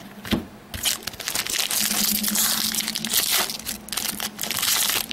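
Foil trading-card pack wrapper crinkling as it is handled.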